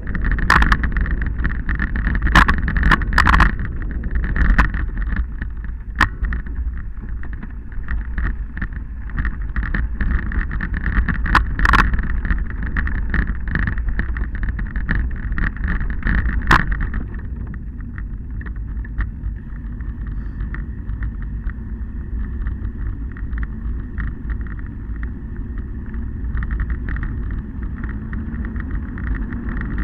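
Wind buffeting a ride-mounted camera's microphone, with rattling clicks and knocks from rolling over a rough stony track; the knocking thins out and the sound gets a little quieter about 17 seconds in, as the surface gets smoother.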